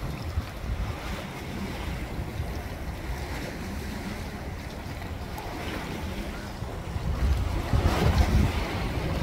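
Wind buffeting the microphone, a steady low rumble that grows stronger and gustier near the end.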